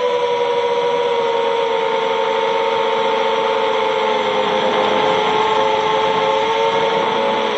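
FPV quadcopter's brushless motors and propellers whining steadily, as heard from the onboard camera, with a faint rush of air underneath; the pitch sags slowly.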